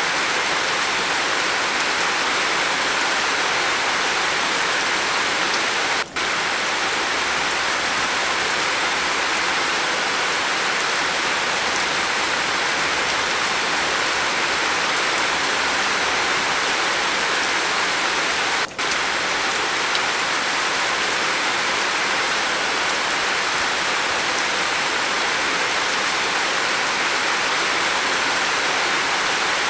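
Steady rain falling on a roof, an even hiss and patter that dips out for an instant twice.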